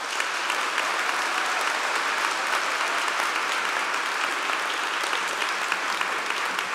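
Audience applause in a large hall: many people clapping steadily throughout, fading out shortly afterwards.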